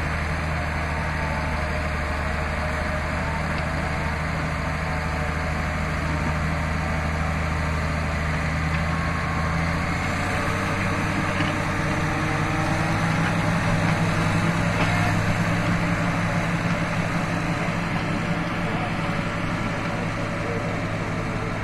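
Bulldozer's diesel engine running steadily. About halfway through its pitch rises, and it gets louder for a few seconds before easing back, as the engine takes on more revs or load.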